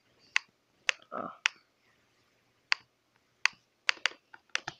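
A Chromebook's touchpad being clicked: about a dozen sharp, separate clicks at an uneven pace, coming faster near the end.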